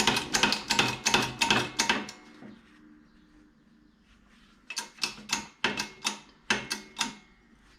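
Hand hacksaw cutting a hard stainless steel bar in steady, even strokes, about four a second. It stops for a couple of seconds, then starts again a little slower.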